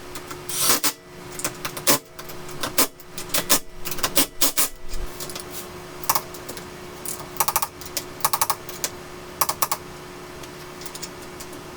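Sharp metallic clicks and short rattling runs of clicks, from lug nuts and tools being handled while fitting new lug nuts to a wheel.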